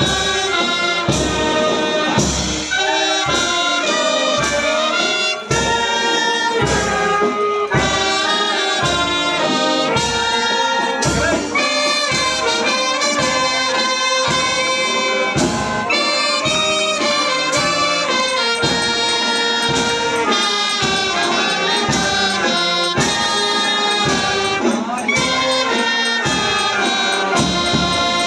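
Brass band of trumpets, saxophones and cymbals playing a tune together over a steady, regular beat.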